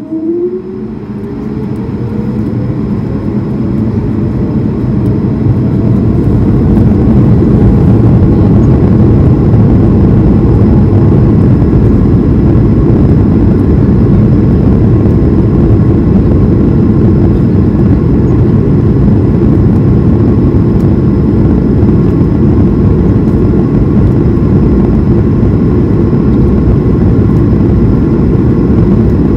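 Airbus A220-300's Pratt & Whitney PW1500G geared turbofans heard from the cabin, spooling up to takeoff thrust. A rising whine over the first several seconds builds into a loud, steady rushing noise through the takeoff roll.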